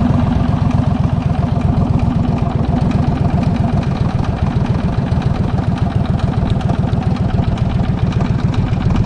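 Small boat's engine running steadily with a fast, even pulse, pushing the boat along at trolling speed.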